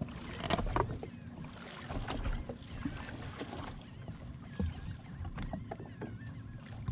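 Water slapping and lapping against the hull of a drifting waverunner, with wind on the microphone and scattered small knocks and clicks.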